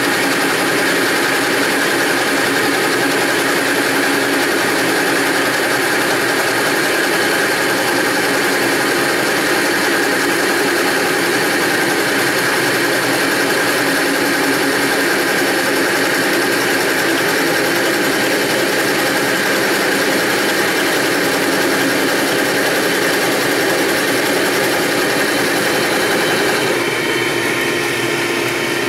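Drill press boring a 1 3/4-inch Forstner bit into oak while a shop vac runs alongside, its hose sucking up the shavings: a steady mix of motor hum and vacuum rush. Near the end the sound changes as the drill press winds down, leaving the shop vac running.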